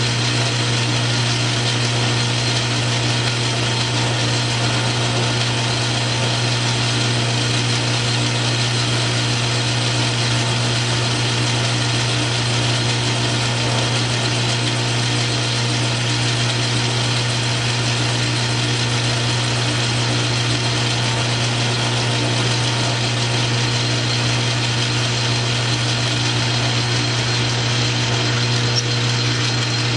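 South Bend metal lathe running steadily with its tool turning a small round part, a constant motor hum under a dense cutting noise.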